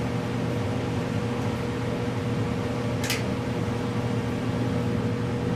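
Shop heater running steadily: a constant fan drone with a hum at a few fixed pitches. A brief scratchy noise about three seconds in.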